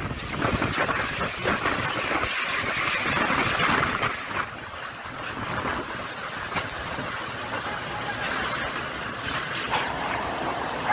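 Typhoon wind and driving rain: a steady rushing hiss with fine rain ticks through it, louder for the first four seconds and then easing slightly.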